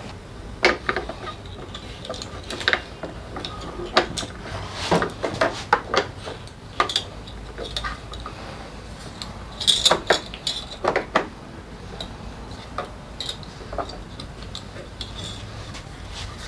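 Irregular clinks, clicks and knocks of hand tools and small parts being handled during motorcycle work, busiest in the middle stretch and thinning out toward the end.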